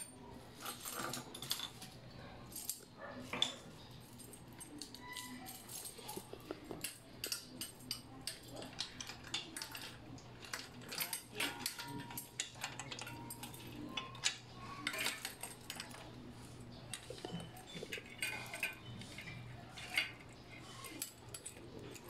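Light metal clinks and rattles of a rear bike rack's struts, brackets and bolts being handled and fitted to a bicycle frame, in irregular knocks throughout, over a low steady hum.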